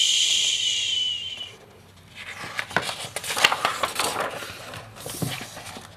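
A long hushing "shhh", then the crinkling rustle of a picture-book page being turned.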